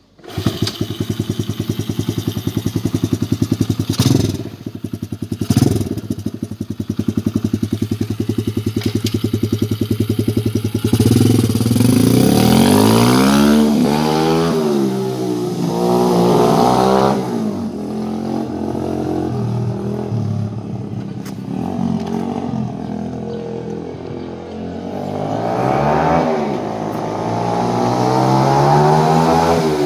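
125cc pit bike's single-cylinder four-stroke engine starting up and idling steadily, with two short throttle blips about four and six seconds in. About eleven seconds in it pulls away, the revs rising and falling again and again through the gears as it rides off, growing fainter, then louder again near the end as it comes back.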